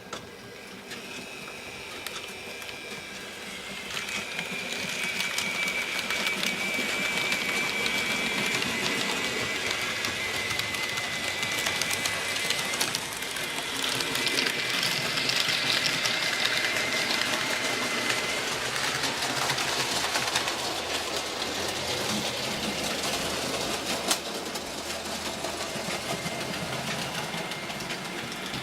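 A small electric motor whirring steadily with a thin high whine, getting louder about four seconds in, typical of a model train running on the layout.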